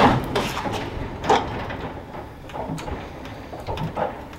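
US General Series 3 steel tool chest, with its top hutch, being rolled out from the wall on its casters: a low rumble over the concrete floor, broken by several knocks.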